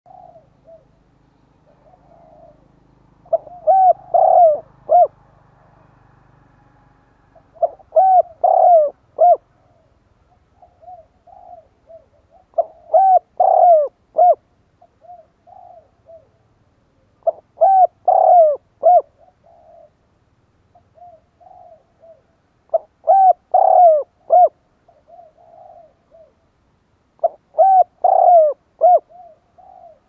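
Spotted dove cooing: six loud phrases of several notes each, one about every five seconds, with softer single coos between them.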